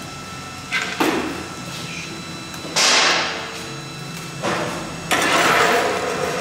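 Air bursts from a pneumatic packaging machine. There is a sharp knock about a second in, then a loud hiss about three seconds in that fades over about a second, and another longer hiss near the end, all over a steady machine hum.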